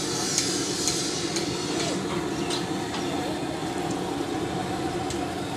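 A steady low mechanical drone, with a few light clicks over it.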